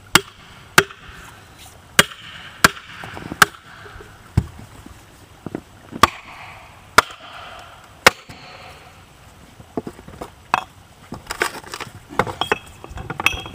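Sharp wooden blows driving a splitting tool into a cedar block, about eight strikes in the first eight seconds. Later comes a run of smaller cracks and creaks as the split cedar is levered apart with the tool's handle.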